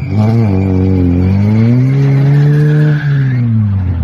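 Lada Niva's four-cylinder engine revving hard as its wheels spin in deep mud: the revs climb about a second and a half in, hold, then fall away near the end.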